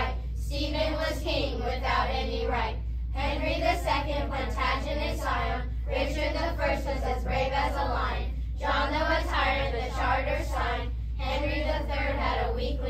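A class of fifth-grade children singing together in unison, in phrases with brief breaks between them about every two to three seconds.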